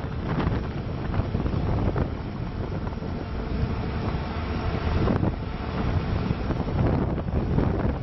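Bobcat T770 skid steer's diesel engine running, heavily buffeted by wind noise on the microphone, with occasional louder swells.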